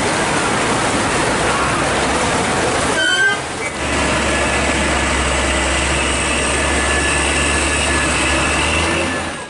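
Heavy rain pouring down with tanker trucks' diesel engines running close by. After a break about three seconds in, a truck engine's low steady rumble is stronger, with a faint steady whine above it.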